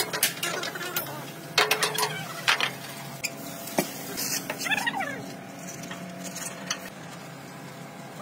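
Metal clanks and knocks from hand tools on a steel truck chassis frame, a few sharp strikes with a short ring, bunched in the first half. About halfway through, a short rising-and-falling squeal.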